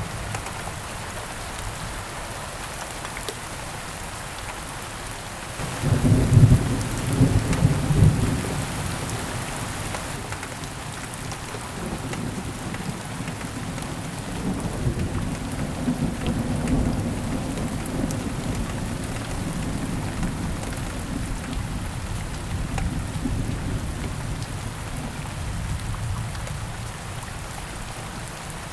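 Steady rain with a loud thunderclap about six seconds in, followed by a long low roll of thunder that swells and slowly fades near the end.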